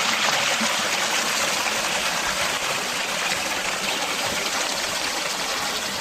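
Fast-flowing water rushing and splashing in a steady, unbroken hiss.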